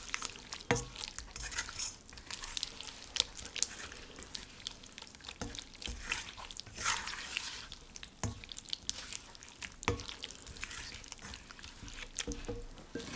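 A silicone spatula stirring chicken and vegetables in a wet miso sauce in a metal wok: irregular taps and scrapes against the pan with wet squelching of the sauce.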